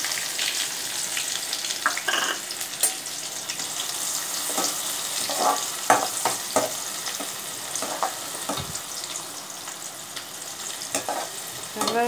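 Chopped onions sizzling in hot oil in a metal kadai, a steady frying hiss, with a spoon clicking and scraping against the pan now and then as the onions are stirred to sauté.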